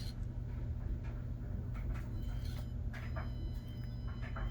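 Axial SCX24 Deadbolt micro crawler working through a rock-and-wood obstacle: its tires scrape and knock over the surface, with a faint high electric-motor whine from about three seconds in.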